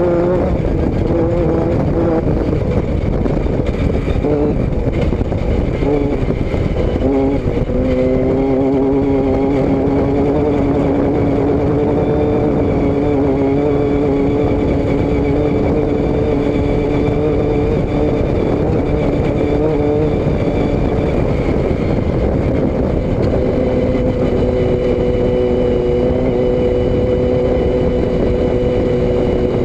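Vehicle engine and exhaust running under way, the note holding mostly steady and changing pitch twice, about a quarter of the way in and again near three-quarters, over a constant rush of wind and road noise.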